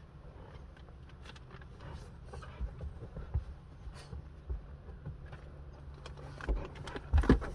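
Quiet car-cabin hum with small knocks and rustles as a dog shifts its feet on the seat, then a brief louder dog growl near the end.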